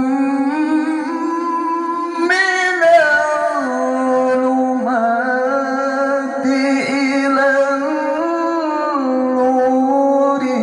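Quran recitation in the melodic tilawah style by a male qari, amplified over a PA system: one long held, ornamented vocal line that climbs about two seconds in and then settles back to a lower held note.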